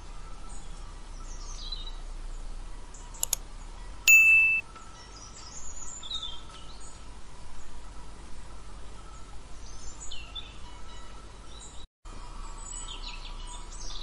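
Small birds chirping and twittering in short, scattered high calls over a faint steady background. About four seconds in, a click and then a bright electronic ding, the loudest sound here, from a subscribe-button animation.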